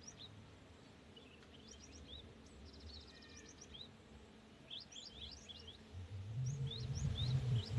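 Cinereous tit (gelatik batu) singing: a series of quick, high, upslurred whistled notes, bunching into rapid runs, with a fast trill about three seconds in. A low rumble rises underneath in the last two seconds.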